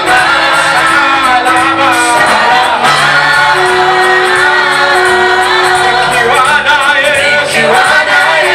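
Live gospel praise music: a group of voices singing over instrumental backing, with a held steady note underneath.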